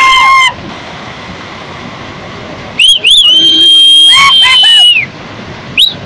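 A long horn blast ends about half a second in, leaving the steady rush of floodwater. Then comes a loud, high whistle held for about two seconds with quick pitch flicks, and a run of short whistle blasts near the end.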